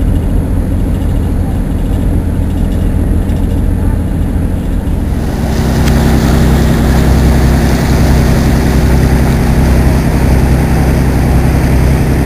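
Tour boat's engine running with a steady low drone; about five seconds in it grows louder and fuller as the boat gets under way.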